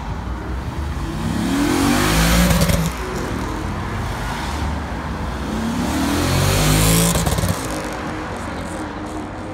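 Two cars accelerate past one after the other. Each engine note rises in pitch as it revs, and the loudest point comes about two and a half seconds in and again about seven seconds in.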